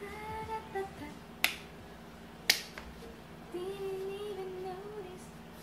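Quiet background music with a sparse melody, and two sharp finger snaps about a second apart near the middle, which are the loudest sounds.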